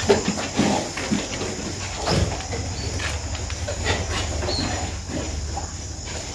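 Pigs grunting in a farrowing pen, a sow and her piglets, with short squeals and scattered knocks. A low, dense grunting stretch runs through the middle.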